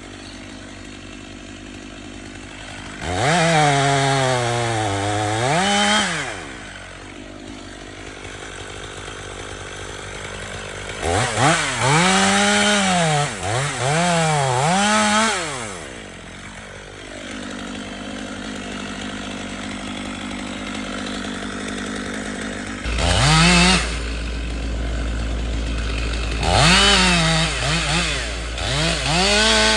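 Two-stroke chainsaw idling between four revved bursts, its pitch climbing and sagging within each burst as it cuts pine wood. The longest burst lasts about five seconds, and a steady low rumble sets in about two-thirds of the way through.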